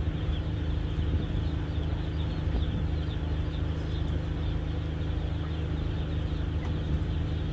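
Docked fast ferry's engines running with a steady low hum of several fixed tones.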